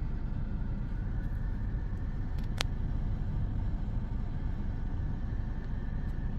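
A car's steady low rumble, as of an engine idling, with a single sharp click about two and a half seconds in.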